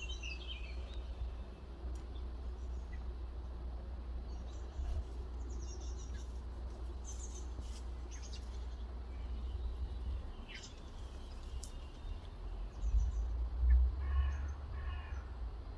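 Yellow-headed amazon parrots calling: a falling squawk at the start, scattered shriller calls through the middle, and a pair of harsh calls near the end. A steady low rumble runs underneath and swells near the end.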